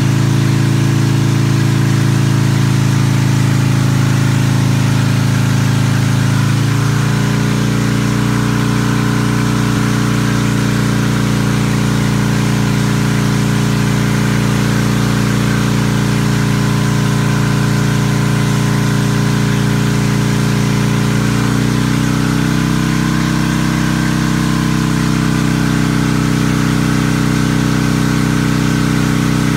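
Motorcycle engine running at steady revs under load on a chassis dynamometer while its Power Commander fuel map is auto-tuned. The pitch shifts slightly about seven seconds in and steps up about twenty-one seconds in, as the engine is moved to a new speed.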